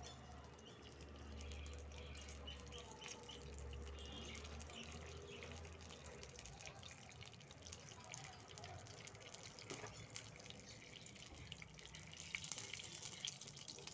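Ghee heating in a steel ladle over a gas flame for a tadka, sizzling faintly with small crackles and pops that come thicker toward the end. A low hum fades out about halfway through.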